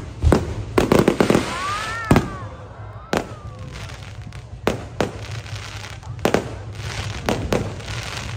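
Fireworks bursting overhead: a string of sharp bangs, with a rapid cluster of reports about a second in and single bangs every second or so after.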